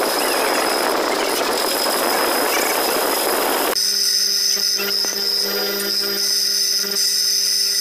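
Metal lathe running and turning a small part, a dense steady hiss of machine and cutting noise. About three and a half seconds in it changes abruptly to a bench grinder running with a steady hum and a high whine while a small metal piece is held to the wheel.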